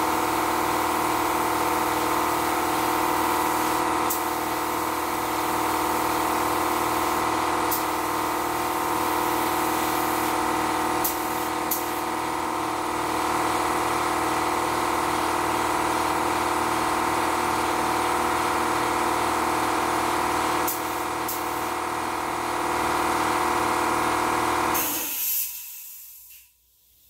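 Air compressor (29-gallon tank) running steadily while feeding an LVLP spray gun. About 25 seconds in it shuts off with a brief hiss and winds down, as a compressor does on reaching its cut-out pressure.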